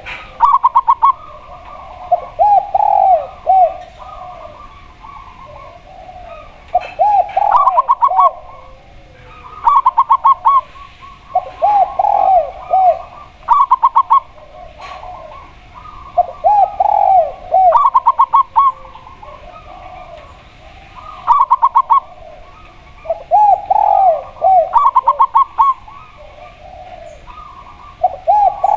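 A spotted dove and a zebra dove cooing back and forth. Phrases come every couple of seconds, a quick series of higher short notes alternating with lower arched coos.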